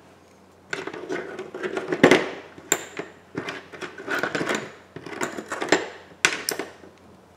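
Irregular clicks, taps and crinkly rustling as a replacement iPhone screen and its plastic packaging tray are handled, starting about a second in and stopping shortly before the end, loudest around two seconds in.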